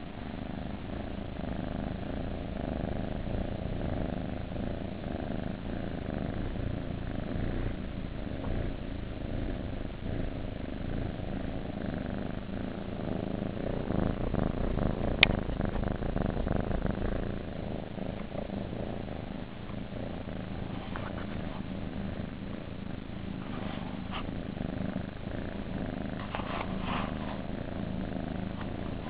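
Kittens purring steadily, close up, with one sharp click about halfway through.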